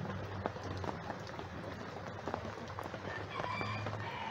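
Rain falling steadily, with scattered dripping ticks. A chicken gives a short call near the end.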